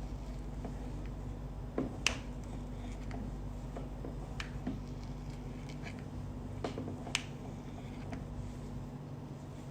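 A handful of sharp, scattered clicks or taps, the loudest about two seconds in and about seven seconds in, over a steady low hum.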